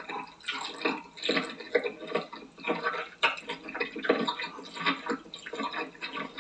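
Wet chewing and slurping of raw octopus: irregular sticky smacks and squelches, several a second.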